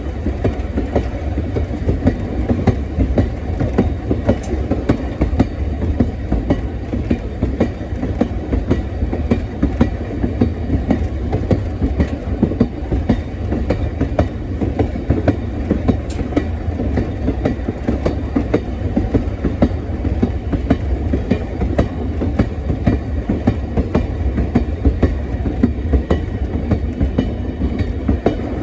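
Excursion train running along the track: a steady rumble of rolling stock with a constant run of wheel clicks over the rails.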